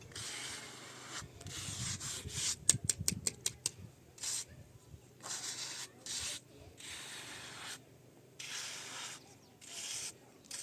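Repeated rubbing or scraping strokes, each lasting about half a second to a second with short pauses between. A quick run of about eight sharp clicks comes about three seconds in.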